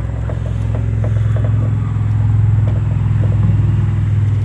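An engine running with a steady low rumble that swells a little through the middle, with a few faint light clicks over it.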